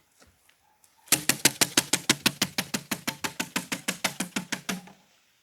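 Rapid, even knocking drummed on a hollow jump box, about eight or nine strikes a second. It starts about a second in, lasts nearly four seconds and fades toward the end. It is a strange noise made to desensitize a horse.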